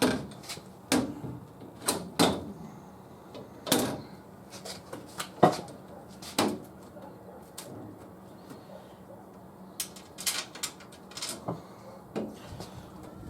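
Scattered knocks and clunks of hand work on a truck door and its window parts, several seconds apart, with a quieter spell past the middle.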